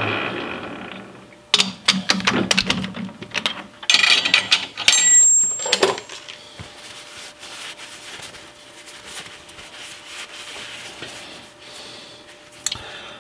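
Metal lathe running down to a stop after a facing cut, then a quick series of sharp metal clicks and clanks as the chuck is opened and the turned metal part is taken out. After that, quieter rustling as the part is wiped with a shop towel, with one more click near the end.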